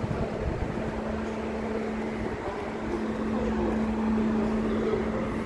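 A steady mechanical hum holding one low note, settling in about a second in, over a rumbling, hissing outdoor background noise.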